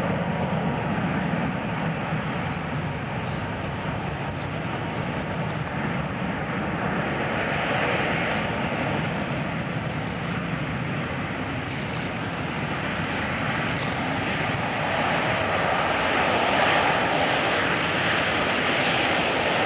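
Jet engines of the Airbus A380 prototype, one of them a Rolls-Royce Trent XWB test engine, running as the four-engined airliner rolls along the runway: a steady jet rumble and hiss with a thin steady whine, growing somewhat louder near the end.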